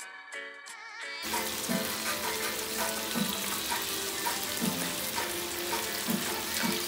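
Guitar music that stops about a second in, then steady sizzling of curry chicken frying in a pan on a gas hob.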